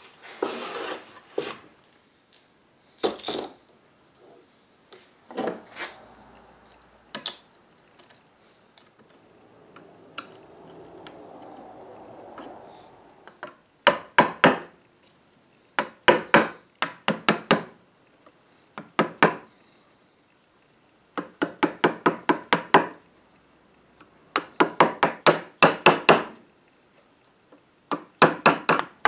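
Hammer blows driving a chisel into a quarter-sawn oak table leaf, cutting out rotted wood around the hinge screw holes. About halfway through the blows start coming in quick bursts of four to eight strikes, with short pauses between bursts. Before that there are a few scattered knocks and a brief rubbing sound.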